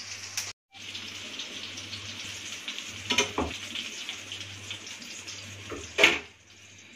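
Fish steaks frying in hot oil in a pan, a steady sizzling hiss, with a short knock about three seconds in and a louder one near the end, after which it goes quieter.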